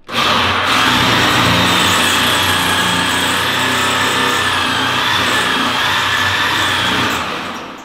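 Electric drill spinning a hole saw pressed against a metal fuel tank, with a steady high whine. The saw only makes noise and does not cut. It starts suddenly and winds down about seven seconds in.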